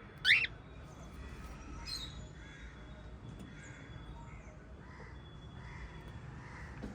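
Small pet parrots calling: one loud, sharp squawk just after the start, a weaker call about two seconds in, and soft chirps over a low, steady background rumble.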